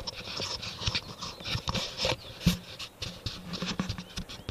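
Handling noise from a Garmin VIRB action camera being worked off its bike mount: irregular clicks, knocks and rubbing close to the microphone.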